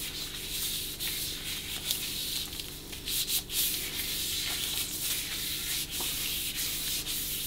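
A rubber-gloved hand rubbing boiled linseed oil along the wooden handle of a Hultafors felling axe: a steady rubbing with small irregular scuffs as the hand slides up and down the wood.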